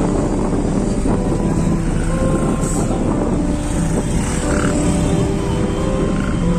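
Steady mixed engine noise of jammed road traffic and road-construction machinery, a continuous rumble with several engines running at once.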